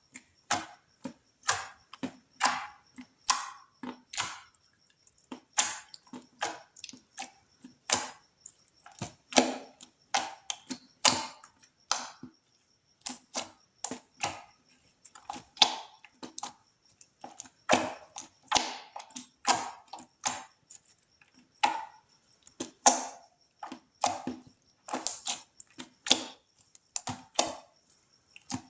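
Slime being squished and worked, making irregular sharp clicking and popping sounds, a few a second with short pauses.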